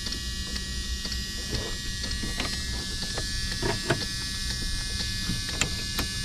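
Clicks and taps of a 1991 Jeep Cherokee's dashboard switches and knobs being worked by hand, scattered over a steady electrical buzz.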